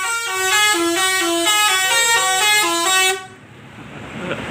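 A tour bus's Basuri telolet horn plays a quick tune of short, stepping notes, then cuts off abruptly about three seconds in. Near the end, the bus rumbles past at close range.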